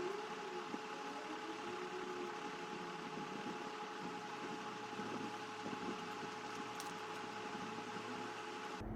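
Steady background hiss with a faint steady hum, like a running fan or room noise.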